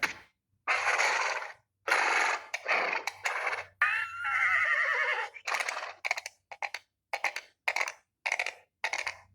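Sound effects with a horse's whinny: a wavering call that falls in pitch about four seconds in, among short noisy bursts that come closer together toward the end.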